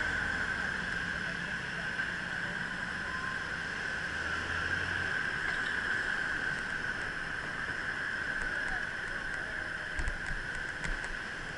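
Steady rushing road and wind noise from a bicycle ride through city traffic, picked up by a bike-mounted camera, with a couple of short knocks about ten seconds in.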